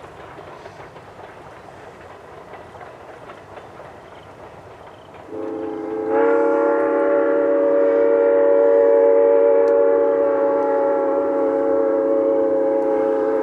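Steam locomotive train rolling along, then its whistle sounding a long, loud chord of several tones, starting about five seconds in and held on.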